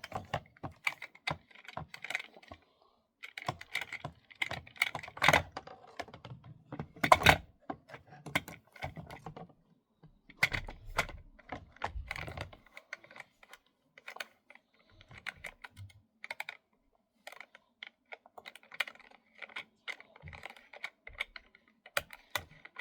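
Irregular plastic clicks, taps and knocks from a Dyson vacuum cleaner's parts being handled and fitted together as the filter is put back. A couple of louder knocks come about five and seven seconds in.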